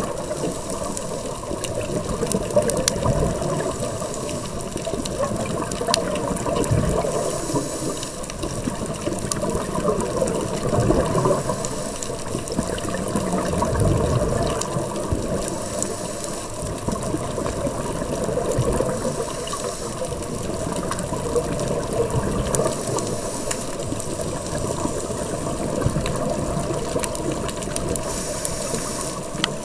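A scuba diver's breathing heard through an underwater camera housing: a continuous low rumbling churn of exhaled bubbles, with a short hiss of inhalation through the regulator about every six seconds.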